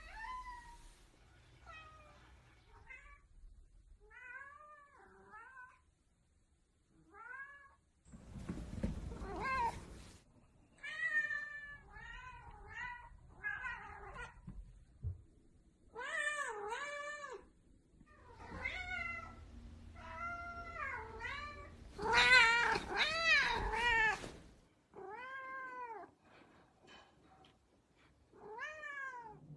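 A domestic cat meowing over and over, a string of separate meows that rise and fall in pitch, some short and some drawn out, with the loudest run of quick meows about three-quarters of the way through.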